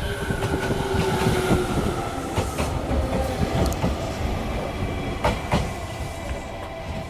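JR Kyushu 815 series electric train pulling into the platform: its motors whine with a tone that slowly falls in pitch as it slows. The wheels clack over rail joints, in a pair of knocks midway and another pair near the end.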